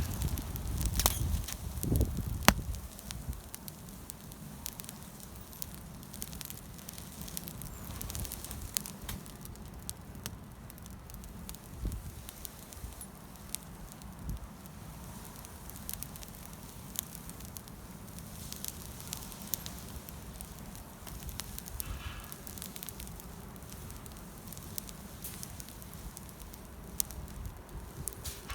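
Wood campfire burning, crackling with frequent sharp pops and snaps over a steady low rumble of flame. The first couple of seconds carry heavier low rumbling and thumps.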